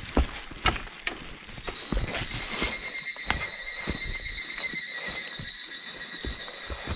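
Footsteps of hikers descending a rough mountain trail: irregular knocks and scuffs of boots on rock and soil. From about two seconds in, a steady high-pitched buzz rises and holds for several seconds before fading.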